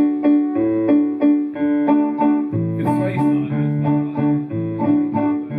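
Live band's keyboard playing the instrumental intro to a waltz: a steady repeating pattern of chords over a moving bass line.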